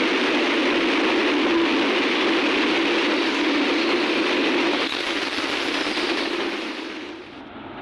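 Steady rushing, rumbling noise that fades away about seven seconds in.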